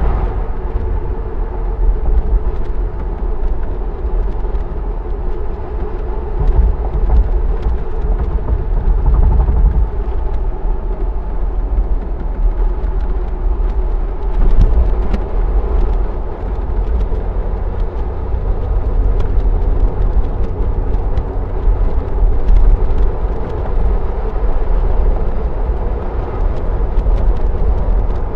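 Jeep Wrangler Unlimited Overland driving at a steady speed: engine drone under a deep, continuous rumble of road and wind noise.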